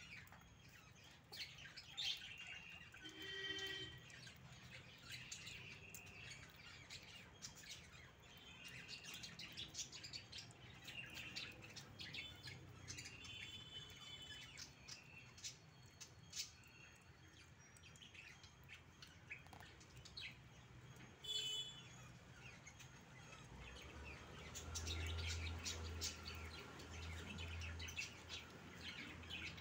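Puppies lapping and eating soft food from a metal bowl, with small wet clicks and many short, high chirps and squeaks. A low hum comes in for a few seconds near the end.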